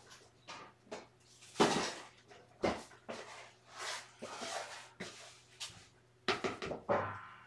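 Scoop scraping and sifting through cat litter in a litter box, in about a dozen irregular strokes, the loudest about one and a half seconds in.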